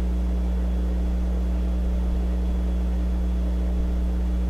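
A steady low hum, unchanging in pitch and level.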